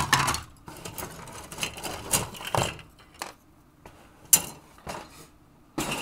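Hard plastic model kit parts of an AMT Klingon Bird of Prey being handled and set down on a cutting mat: a scatter of light knocks and clicks with rustling between, the loudest knock about four seconds in.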